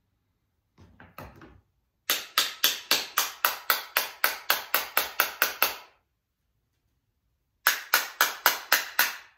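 Rapid sharp knocks, about three or four a second for roughly four seconds, then after a short pause a quicker run of about seven more: a small jammed mechanism being rapped to shake a stuck part loose.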